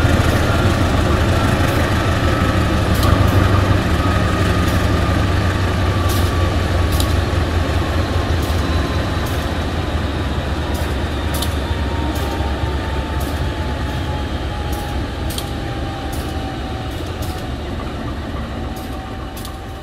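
A KAI CC 203 diesel-electric locomotive's V8 diesel engine running while standing, with a thin whine sliding slowly down in pitch as the engine eases down after the engine test. The overall sound fades gradually, with sharp ticks now and then.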